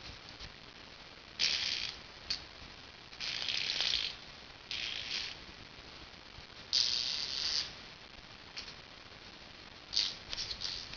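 A baby making noisy tongue-and-mouth sounds: short, breathy, rasping bursts, about seven of them, with pauses between.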